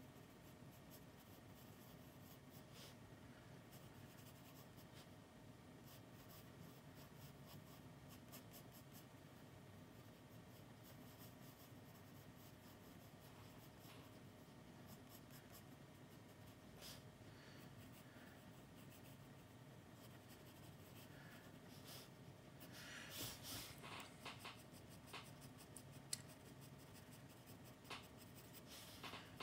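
Faint scratching of a graphite pencil on sketchbook paper as a drawing is shaded, in short irregular strokes, with a busier run of quick strokes about three-quarters of the way through.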